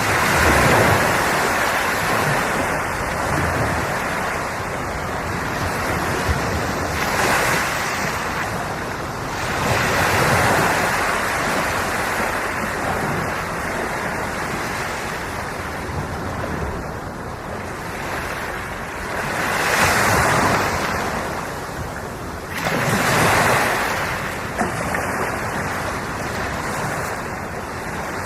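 Ocean surf: waves breaking and washing in as a continuous rush, swelling louder with each breaker every few seconds.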